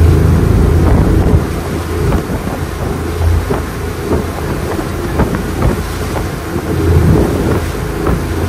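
Power boat engine running with a heavy low rumble, wind buffeting the microphone and many short, irregular knocks throughout.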